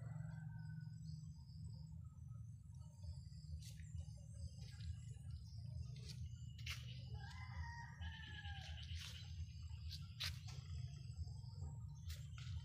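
Chicken calls, with one longer falling rooster-like call about seven seconds in, over a steady low hum and a few sharp clicks.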